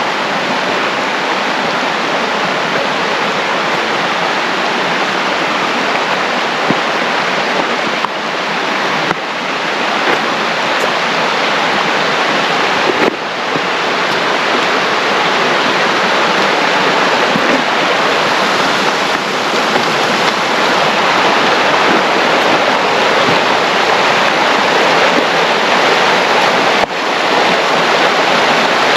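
Rushing water of a creek or river, a loud steady rush that drops briefly a few times.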